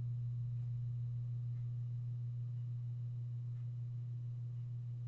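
A steady, low electrical hum on a single tone, with a few faint taps as the plastic air intake duct is handled.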